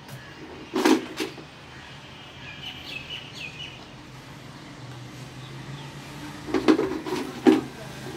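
Plastic toy animal figures knocking against a platform of plastic building blocks as they are set down: two knocks about a second in, and a quick run of about four near the end. Faint bird chirps around three seconds in.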